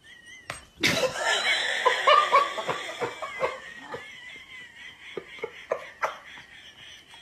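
Human laughter, breaking out about a second in, then going on in shorter chuckles that trail off.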